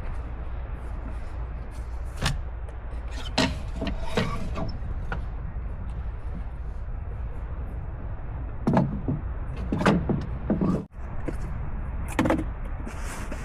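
Several short knocks and clatters of objects being handled, at irregular moments over a steady low rumbling background noise.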